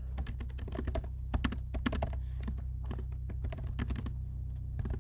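Typing on a computer keyboard: quick, irregular keystrokes, several a second, over a steady low hum.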